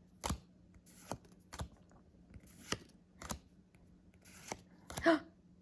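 Pokémon trading cards being flipped through one at a time: about seven sharp card snaps or clicks at irregular intervals of roughly half a second to a second.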